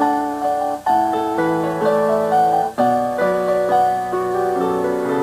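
Piano playing sustained chords under a melody, with a new chord struck every second or so.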